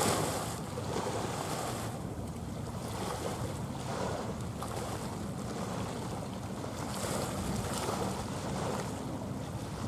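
Small waves washing against the shore, swelling and falling every second or two, with wind buffeting the microphone as a low rumble.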